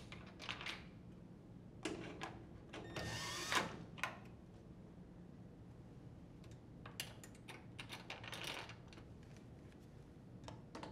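Short runs of a cordless drill driver with a 1/4-inch nut-driver bit, driving screws into a washer's back panel. The loudest run, about three seconds in, has a whine that rises as the motor spins up, and a few handling clicks fall between the runs.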